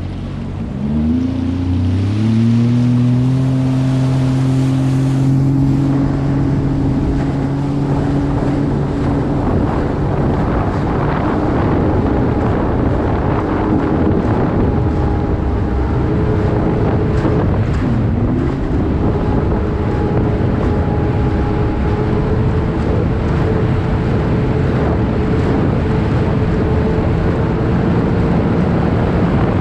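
Sea-Doo Fish Pro personal watercraft's 155-hp engine accelerating: its pitch climbs steeply about a second in, then holds high and steady under a rush of water and wind at speed. About halfway through the pitch dips briefly and climbs again.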